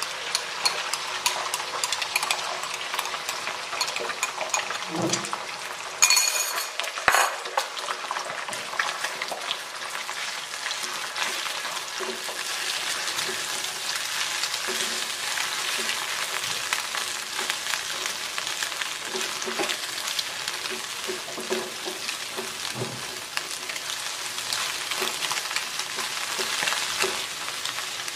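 Beaten egg sizzling in hot oil in a wok, stirred and scrambled with a wooden spatula. There are a few sharp knocks about six and seven seconds in.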